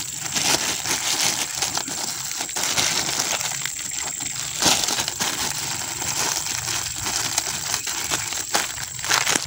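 Thin clear plastic bag crinkling and rustling as fingers handle it and tie it around a branch: a continuous crackle of small crinkles, with one sharper crackle about halfway through.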